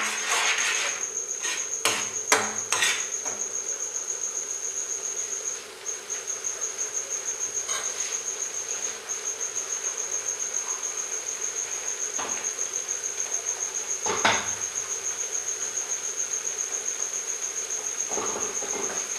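A cricket chirping in a steady, high, rapidly pulsing trill, broken by two short pauses. A metal ladle scrapes and knocks against the steel pan a few times in the first three seconds, with one more knock about 14 seconds in.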